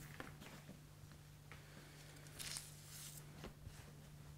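Faint rustling and soft squishing of pastry dough scraps being peeled off floured paper and pressed together by hand, clearest about two and a half seconds in, over a low steady hum.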